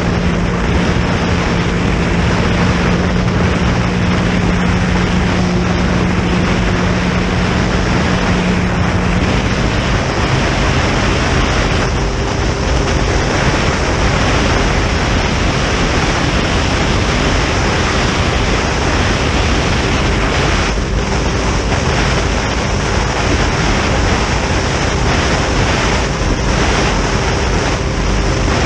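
Boat running at high cruising speed: wind buffeting the microphone and water rushing past the hull over a steady outboard engine hum. A low engine tone drops out about nine seconds in and a higher steady tone carries on.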